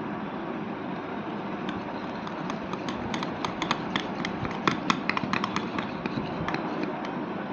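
Glue slime being stirred in a bowl after borax activator was added, with a run of irregular sharp clicks and taps from the stirring utensil and the sticky mixture over a steady background hiss. The mixture is not setting into slime: the batch has flopped.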